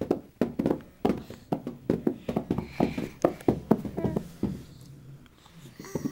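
Young children making noise: a rapid run of short, sharp sounds, about four to five a second, easing off briefly near the end.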